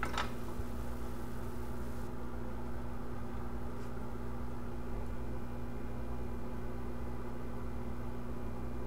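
Steady hum of running workbench equipment, with a few constant low tones over a fan-like hiss, and a faint click just after the start.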